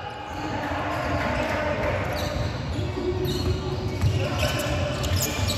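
Basketball bouncing on a hardwood sports-hall floor during play, a run of low thumps, with players' voices calling out in the hall.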